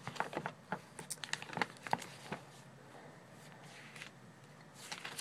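Pages of a thick paper catalog being turned and handled: a run of crisp paper rustles and flaps, a quieter pause about halfway, then more rustling near the end.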